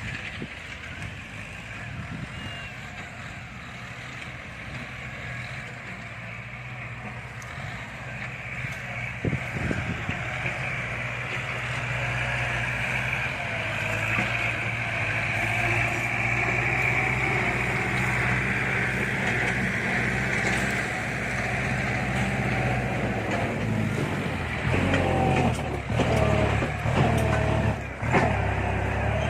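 Kubota diesel tractor engine running, growing louder over the first half as it comes closer or takes load, then its pitch rising and falling unevenly near the end as the engine is worked harder.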